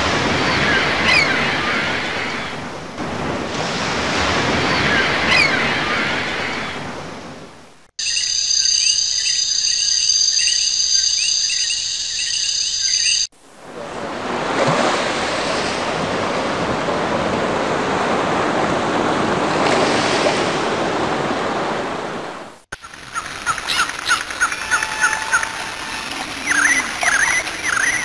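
A sequence of nature sound effects joined by sudden cuts: surf swelling and falling with birds chirping, then a few seconds of steady high trilling, then surf again, and finally birds chirping.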